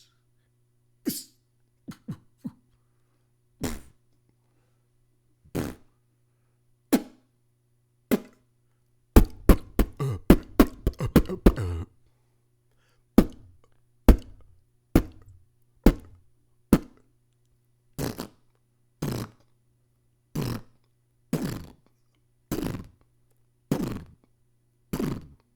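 Beatboxing: short percussive mouth-made drum hits, spaced a second or two apart at first. Around the middle they run into a fast roll of rapid hits, then continue at about one hit a second.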